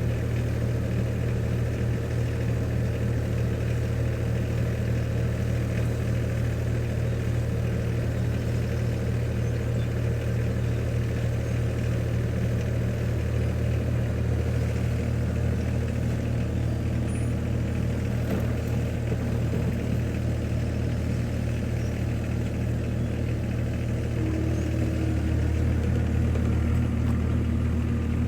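Skid steer's engine running steadily, getting a little louder near the end.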